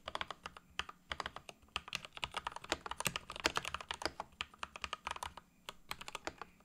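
Typing on a Royal Kludge RK100 keyboard fitted with hand-lubed Gateron Red linear switches and stabilizers greased with dielectric grease: a fast, continuous run of keystrokes with a brief lull near the end.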